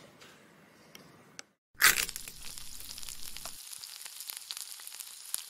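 Scratchy, crackling sound of a pen scribbling on paper, starting suddenly about two seconds in and running on with many small clicks and scratches. Before it comes faint room tone with a couple of small clicks, then a moment of dead silence.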